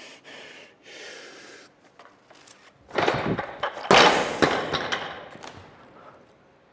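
Breaths, then a 111 kg barbell loaded with Eleiko rubber bumper plates dropped onto the lifting platform from a missed snatch. There is a crash about three seconds in and a louder one a second later, then clattering bounces that die away.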